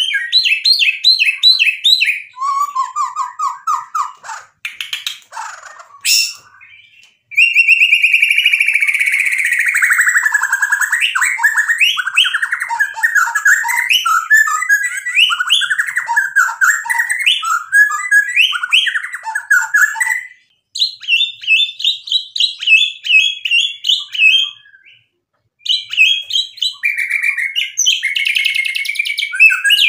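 Male white-rumped shama in full, vigorous song: a loud, varied stream of rapid whistles, trills and chattering phrases, including a long falling trill about a third of the way in, broken by a few short pauses.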